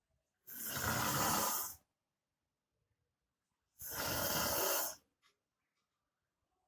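A sleeping man snoring very loudly: two long, rasping snores, each just over a second, about three seconds apart.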